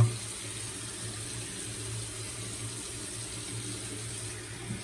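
Bathroom sink tap running steadily into the basin, an even rushing hiss, with a low hum underneath.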